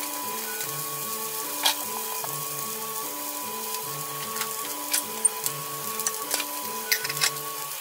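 Chopped broccoli stems stir-frying in a non-stick frying pan: a steady sizzle with a few sharp pops scattered through it.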